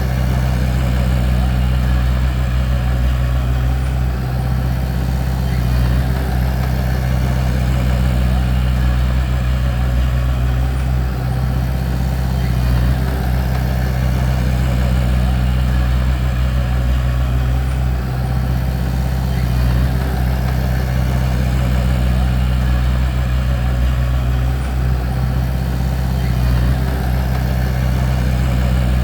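Bulldozer's diesel engine running steadily at an even speed, with a deep, unchanging hum.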